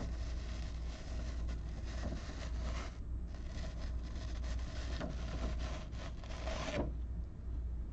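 Rustling, rubbing handling noise that stops suddenly about seven seconds in, over a steady low hum.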